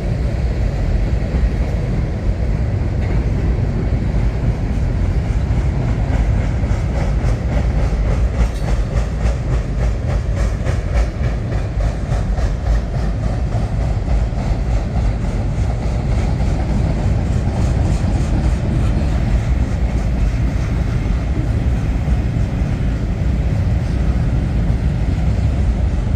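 Long freight train rolling past: a steady low rumble of wheels on rail, with a run of quick, even wheel clicks over the rail joints around the middle.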